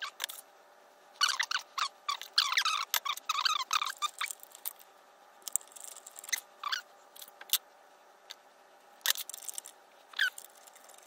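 Wire strippers squeaking and clicking as insulation is stripped off a red 12-gauge wire. A run of squeaks lasts about three seconds starting a second in, and more squeaks come near the end, with scattered clicks between.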